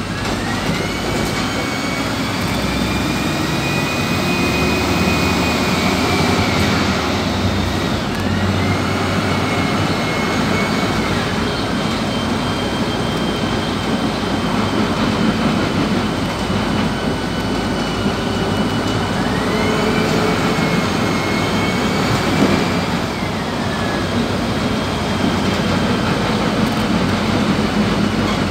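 Inside a PAZ 320414-14 bus on the move: the engine drones steadily with road rumble. Three times a high whine rises, holds for a few seconds and falls away as the bus speeds up and then eases off.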